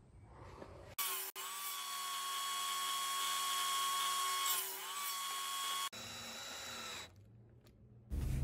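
Table saw running with a steady high whine, starting about a second in; the pitch sags briefly about four and a half seconds in as the blade cuts through a pressure-treated board on a crosscut sled, and the sound stops abruptly near six seconds.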